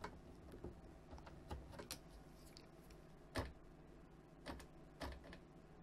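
Faint, irregular clicks of the FUNCTION push-button on a Digimess UZ2400 frequency counter's front panel, pressed several times to step through its function menu.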